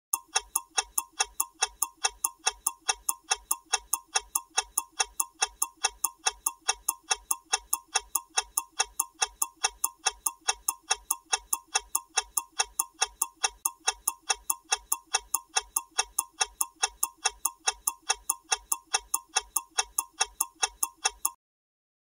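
Even, mechanical ticking like a clock, about three or four identical ticks a second, stopping abruptly near the end.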